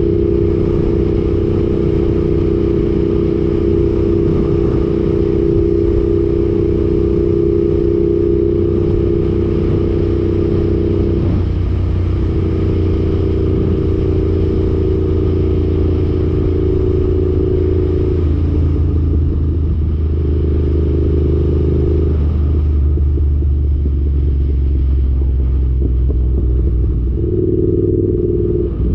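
Yamaha YZF-R7's parallel-twin engine through an Arrow exhaust, running steadily while riding, its pitch stepping to a new level a few times as the speed changes.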